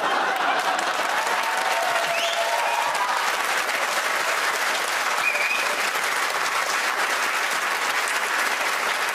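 Studio audience applauding, with cheers and whoops in the first few seconds.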